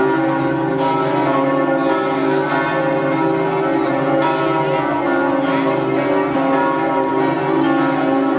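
Several church bells ringing together in a continuous peal, many overlapping tones sounding without a break.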